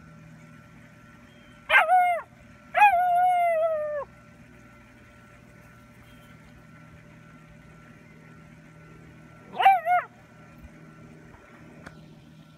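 Beagle puppy yipping twice, then giving a longer howl of about a second that holds its pitch and drops at the end; two more quick yips come about seven seconds later.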